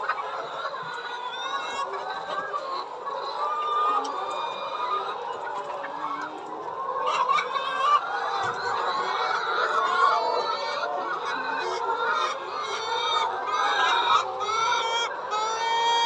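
A large flock of Lohmann Brown laying hens clucking and calling together, a dense chorus of many overlapping calls that grows busier about halfway through.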